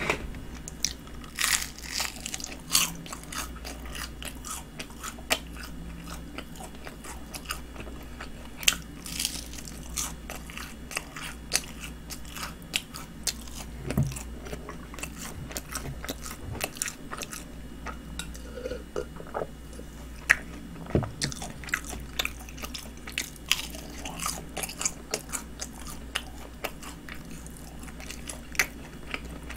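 Close-miked biting and chewing of Kyochon Honey Combo fried chicken: the crisp coating crunches in many short, irregular cracks as it is bitten and chewed.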